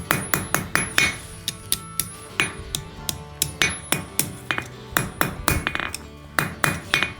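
Hand hammer striking a small mild-steel scroll on an anvil in quick ringing blows, about three or four a second.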